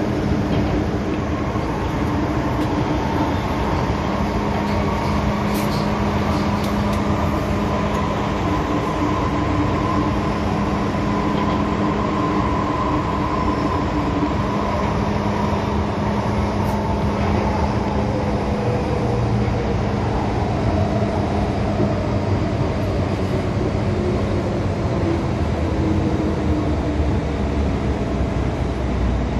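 MTR M-Train metro train heard from inside the car as it runs through the tunnel: steady wheel and track rumble with the whine of the traction motors. In the second half the whine falls in pitch as the train slows into the next station.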